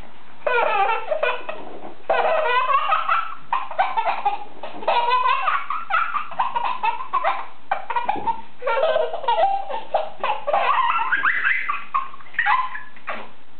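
Infant laughing hard in repeated fits of belly laughter. Each fit is a run of quick, pulsing laughs, with brief pauses for breath between fits.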